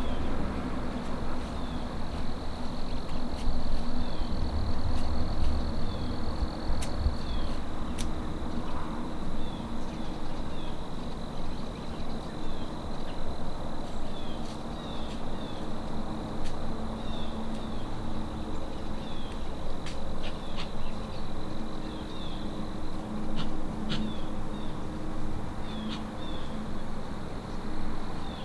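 Insects singing: a steady high-pitched trill with short high chirps now and then, over a low rumble.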